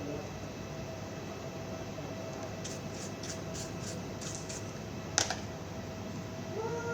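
Steady hum and fan-like background noise with a run of light clicks a few seconds in and one sharp click about five seconds in, like small tools being handled on a workbench.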